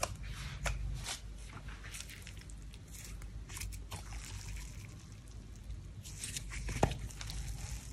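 Glossy slime squeezed, folded and stretched by hand, making irregular wet clicks and crackles, with one louder pop near the end.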